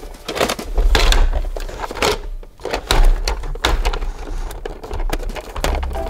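Hard plastic clicks, knocks and rubbing from a toy ambulance being handled and its parts worked open, with dull thuds against the table.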